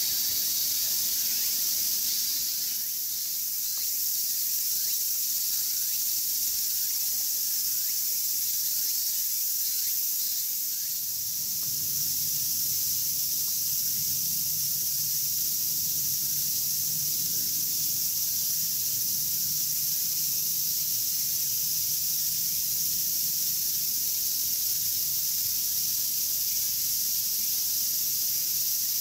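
A steady, high-pitched chorus of cicadas, typical of a Japanese summer, holds without a break. A faint low hum joins underneath about twelve seconds in.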